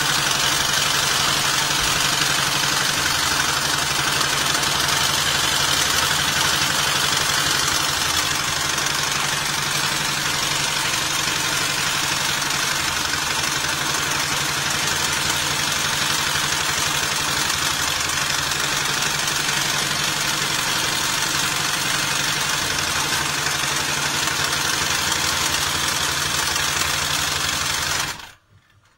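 Hightex 72008 heavy-duty pattern sewing machine running steadily as it stitches multi-layer polyester webbing; it stops abruptly near the end.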